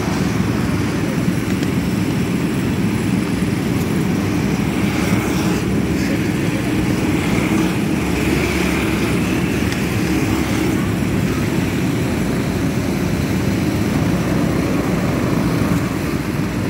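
Several go-kart engines buzzing steadily as the karts lap the circuit, the note swelling a few times as karts pass closer.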